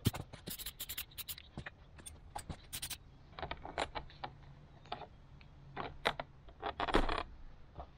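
Aerosol can of flat black spray paint hissing in many short bursts over the first three seconds, then quieter scattered crinkling as the masking is peeled off the freshly painted carburetor part.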